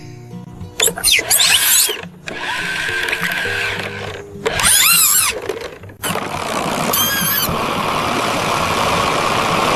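A power saw cutting wood in three bursts, the longest near the end, with short wavering squeals in between, over background music.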